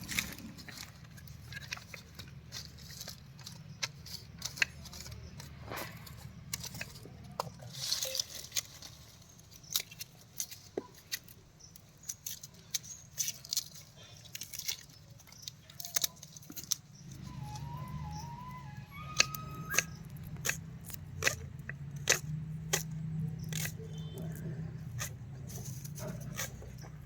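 Irregular sharp clicks and knocks throughout. Soft background music comes in about seventeen seconds in.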